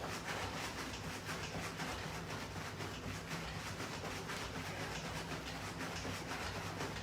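Jogging in place on a floor: footfalls in an even rhythm of about three a second, over a steady low hum.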